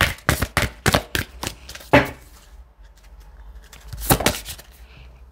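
A deck of cards being shuffled by hand: a quick run of crisp card clicks for about two seconds, then another short burst about four seconds in.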